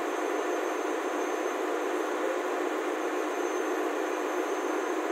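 Steady machinery noise of a ship's engine room, an even rushing drone with no rhythm or change, and a faint high steady whine above it.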